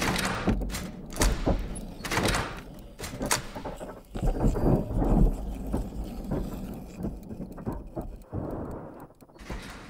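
A mechanical contraption of metal frame, tubing and wooden panels working, with irregular knocks, thuds and sliding clunks. The sounds are busiest and loudest in the first five seconds and thin out afterwards.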